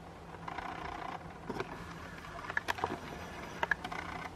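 Faint whirring of the Canon SX60 camera's lens motor in short spurts as the autofocus hunts and fails to lock on a glass bulb held close to the lens, with a few light clicks scattered through.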